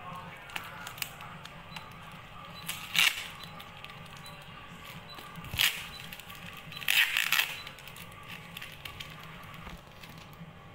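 Packing tape on a parcel being cut and torn away: small clicks and crackles of the plastic, with three louder rips of tape, about 3 s in, just after 5 s, and a longer one about 7 s in.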